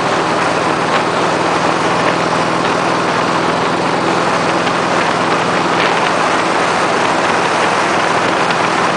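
Harley-Davidson V-twin motorcycle engine running steadily at highway speed, under a heavy, even rush of wind noise on the microphone.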